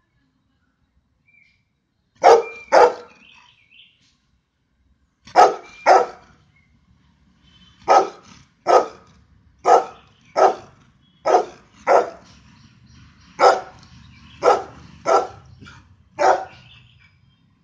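Golden retriever barking: short single barks, at first in pairs a few seconds apart, then a steadier run of about ten barks, roughly one a second.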